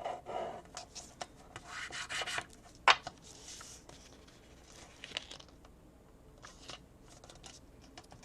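Paper being handled and folded by hand: scattered rustles and rubs, with a sharp tap about three seconds in.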